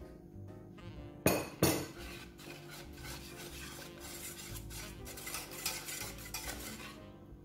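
Two sharp knocks of a metal spoon a little over a second in, then a wire balloon whisk beating flour into a thick egg-and-sugar batter in a nonstick saucepan: a fast, rhythmic scraping swish against the pan that stops near the end.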